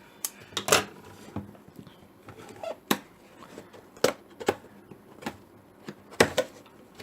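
A cardboard box and its packing being opened and handled by hand: irregular sharp clicks and taps.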